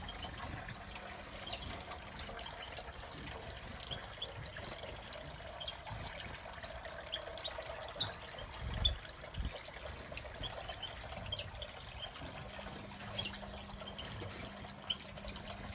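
Small garden water fountain trickling steadily into its basin, with many short, high chirps of small birds scattered over it.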